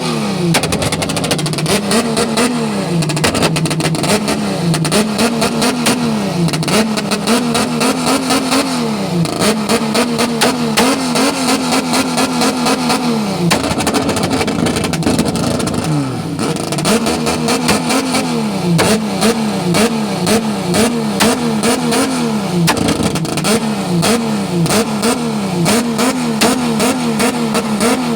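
Ford Falcon's straight-six engine being revved over and over, its pitch rising and falling about once a second, with a short lull about halfway through.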